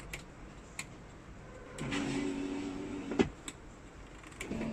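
Electric trike's power window motor running for about a second and a half as the door glass moves, stopping with a sharp click as it reaches the end of its travel. Near the end the motor starts again, driving the glass the other way.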